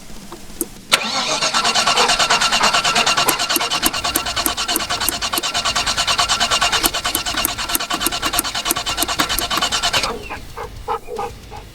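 Starter motor cranking a Holden VT Commodore SS's 304 V8: a sharp click about a second in, then about nine seconds of even, rhythmic cranking without the engine firing, before it stops. The V8 has sat unstarted for eight years and cranks but won't start; the owner suspects no fuel is reaching it and that the fuel pump could have failed.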